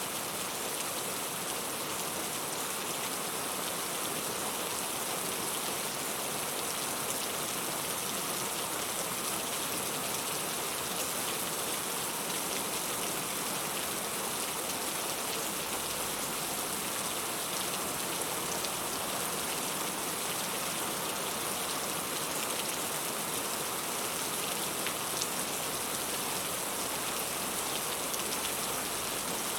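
Steady rain falling in an even hiss, with a few single drops ticking out now and then.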